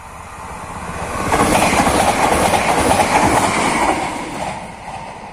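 Koleje Dolnośląskie passenger train passing close by at speed, wheels clattering over the rails. It grows to a loud rush about a second in and fades after about four seconds as the train recedes.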